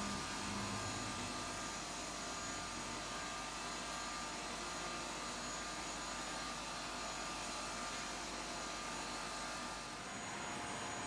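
Steady machine noise of a running tortilla chip frying line and its conveyor: an even hiss with a few faint steady hums. The sound thins out slightly near the end.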